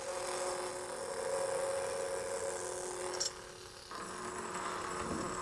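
Lightsaber soundboard's idle hum played through an unhoused 24 mm bass speaker: a steady hum with a hiss. About three seconds in it clicks and drops out for about half a second, then comes back.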